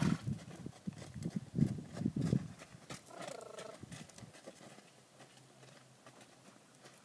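Horse's hooves thudding on soft sand as it moves on the lunge line, loudest in the first couple of seconds, with a short high-pitched call a little after three seconds in.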